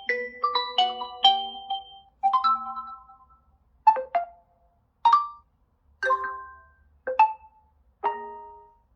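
Realme GT 5G smartphone ringtone: a bright melody of struck, bell-like notes. It opens with a quick run of notes, then slows to single ringing notes about once a second.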